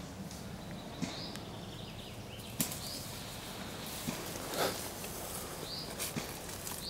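Footsteps and rustling through undergrowth, with a few sharp clicks and a longer rustle about two thirds of the way in.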